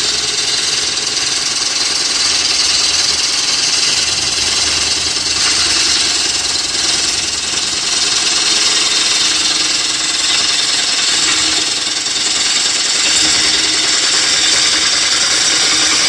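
Gouge cutting into a large spinning wooden bowl blank on a Laguna Revo 24/36 lathe: a steady, loud rushing hiss of shavings peeling off the wood, with the lathe running underneath. This is the roughing-out stage of turning the bowl.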